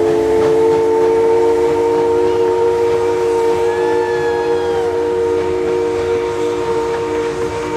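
Steam locomotive's chime whistle sounding one long, steady blast of several notes together over a background hiss of steam.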